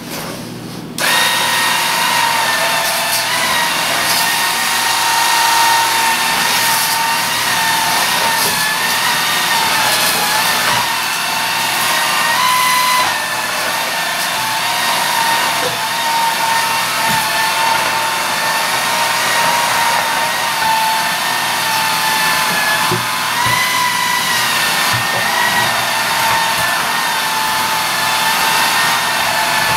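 Small Swiffer stick vacuum cleaner switching on about a second in and running with a steady high whine, its pitch shifting slightly now and then.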